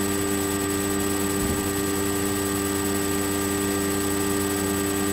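Steady electrical hum with hiss, the recording's background noise; no distinct sounds stand out.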